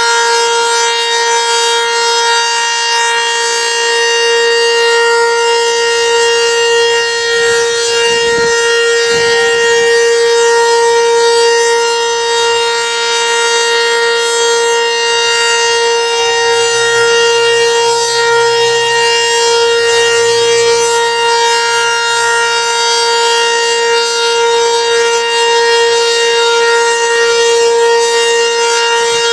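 ACA Banshee outdoor warning siren sounding a steady alert tone at full speed, one loud unwavering pitch rich in overtones, during a routine test.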